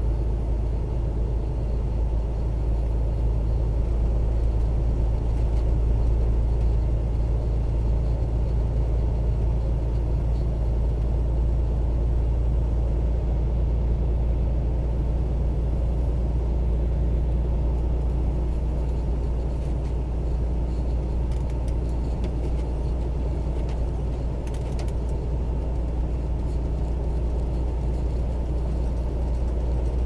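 Steady low drone of an 18-wheeler's engine and tyres heard from inside the cab while driving at speed.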